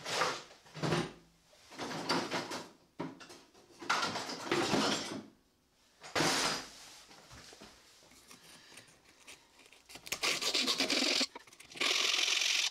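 A series of irregular scraping or rubbing strokes by hand on wood, each half a second to a second long with short pauses between them. The last two strokes are longer and more even.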